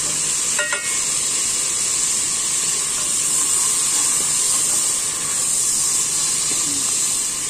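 Garlic, onion and freshly added ground spices sizzling in oil and a little water in an aluminium pot while being stirred with a wooden spoon: a steady hiss, with one short knock under a second in.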